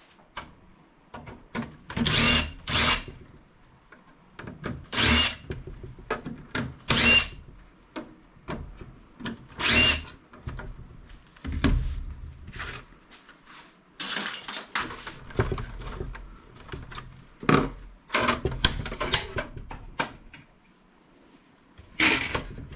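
Handheld power driver running in short bursts, about half a second each, with clatter and knocks of plastic and metal parts between them.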